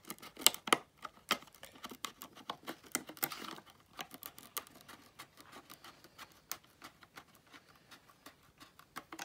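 Hand shears cutting a Lexan polycarbonate sheet: an irregular run of short, sharp snips, a few a second, as the blades close through the plastic.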